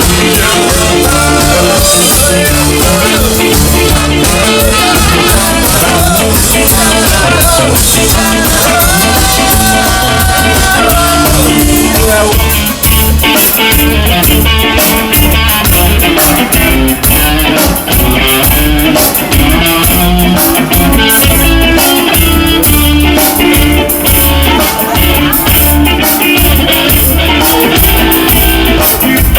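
Ska band playing live: a loud, steady instrumental stretch of the song, with drums, bass and guitar keeping a regular beat, and a held melody line about a third of the way in.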